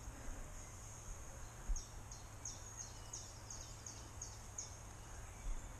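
A songbird singing a quick run of about nine short, high notes, each falling in pitch, over a steady faint high hiss, with a few low bumps.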